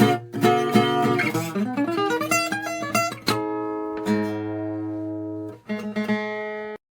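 Donner 40-inch cutaway acoustic guitar being played: a few strummed chords, a rising run of single notes, a long ringing chord, then one more strum that cuts off suddenly near the end.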